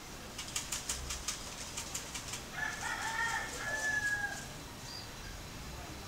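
Budgerigar scratching about in the seed inside a plastic cage feeder: a quick, irregular run of dry, sharp scratching clicks for the first two seconds or so. Then a short bird call lasting under two seconds, starting about two and a half seconds in.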